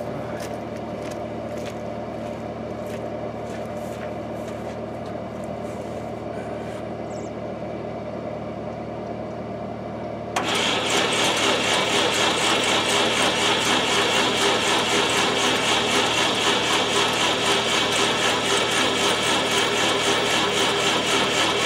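Old Red Seal flathead welder engine turned over by its electric starter on a weak battery. About ten seconds in, the cranking starts suddenly and goes on for some eleven seconds with an even pulsing rhythm, without the engine catching, a sign of it getting no fuel. A steady engine hum runs underneath throughout.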